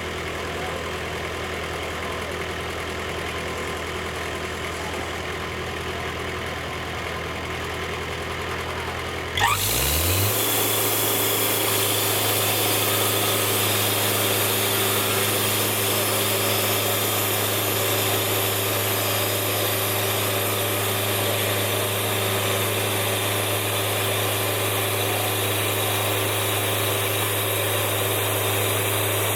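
Sawmill engine idling steadily, then about nine seconds in revving up quickly to a higher, louder speed and running steadily there.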